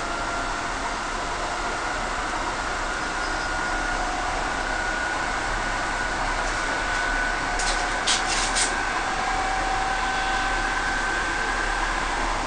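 Inside a moving electric suburban train: a steady running rumble and hiss from the carriage, with a faint motor whine that slowly rises in pitch as the train gathers speed. A few sharp clicks come about eight seconds in.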